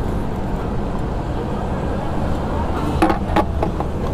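A motorcycle's metal fuel-tank cap being pushed shut, giving a few sharp clicks about three seconds in, over a steady low rumble.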